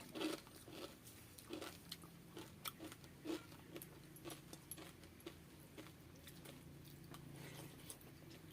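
A person eating close to the microphone: irregular crunchy bites and chewing of a meal of fried fish with fermented water rice, the louder crunches coming in the first few seconds, over a steady low hum.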